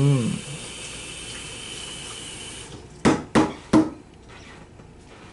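A steady hiss like running water that stops about two and a half seconds in, followed by three sharp knocks in quick succession.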